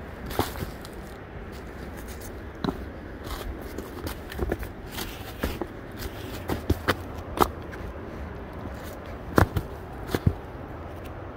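Footsteps of a hiker walking down a trail: irregular steps and scuffs, a dozen or so sharp knocks unevenly spaced, the loudest about nine and ten seconds in. A low steady rumble runs underneath.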